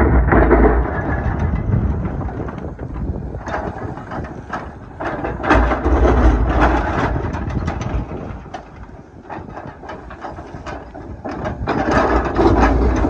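Doosan DX420LCA excavator heard from the cab, its diesel engine working under hydraulic load with clattering and knocking. The sound swells loud three times, at the start, around the middle and near the end, easing between.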